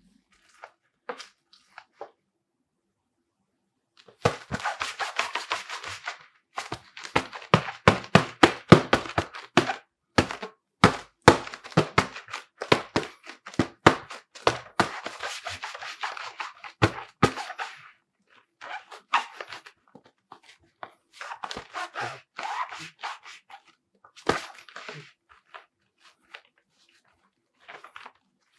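Goalkeeper gloves being handled: their latex and fabric rub and rustle, with many sharp taps and knocks, in bursts separated by short silences.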